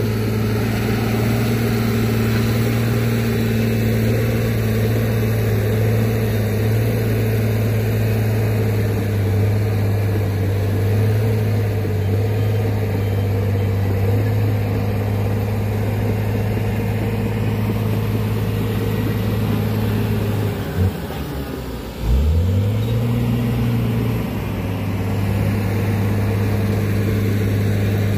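Fully loaded Mitsubishi Canter dump truck's diesel engine running at steady revs. About 21 s in the engine note drops off briefly, then climbs back up to its steady pitch within a couple of seconds.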